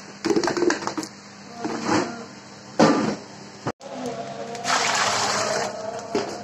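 Water pouring and splashing into a large metal wok for about a second, after scattered knocks and clatter.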